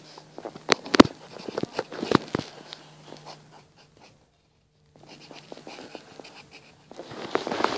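Graphite pencil scratching on paper while writing, with a few sharp knocks and clicks in the first couple of seconds. The sound cuts out completely for about a second past the middle.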